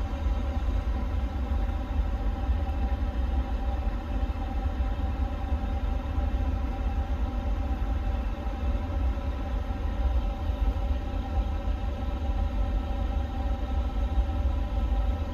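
Steady airliner cockpit background noise: a constant low rumble with an even multi-tone hum of ventilation and equipment-cooling fans, unchanging throughout.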